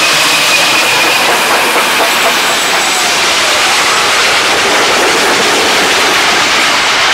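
Union Pacific Big Boy No. 4014, a 4-8-8-4 articulated steam locomotive, and its train passing at close range: a loud, steady rush of steam and wheels rolling on the rails as the engine, its tender and the cars go by.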